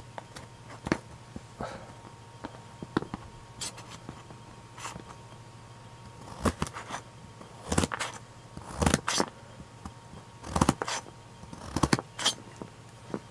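Kitchen knife slicing through carrot and knocking down onto a thin plastic cutting sheet: slow, irregular chops, sparse at first and more frequent and louder from about halfway, roughly one a second.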